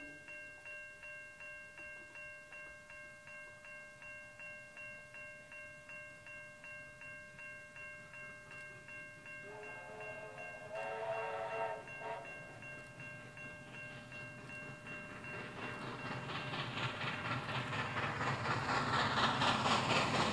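A warning bell dings steadily, about two and a half times a second, and stops about three-quarters of the way through. Partway through, a distant steam locomotive whistle sounds two blasts. Toward the end, the exhaust beats of double-headed steam locomotives 3265 and 3526 grow louder as they approach.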